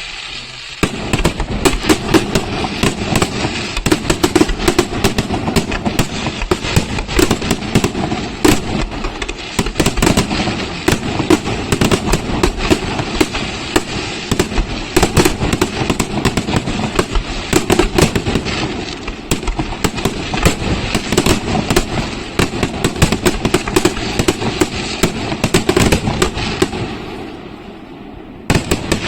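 Aerial fireworks display: a dense, continuous barrage of shell bursts and crackling reports, many per second, over a rolling rumble, easing off briefly near the end.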